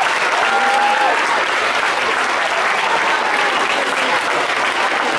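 Audience applauding steadily, with a faint cheer or whistle over it in the first second.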